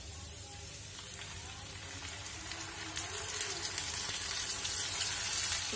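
A wet ground tomato, onion and cashew masala paste poured into hot oil with frying onions, sizzling with a hiss that grows steadily louder as more paste goes in.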